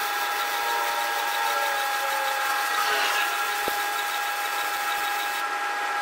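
MIG welding arc on heavy steel, with wire feeding into the joint, crackling and hissing steadily while a filler pass goes into a gap. The arc breaks off near the end.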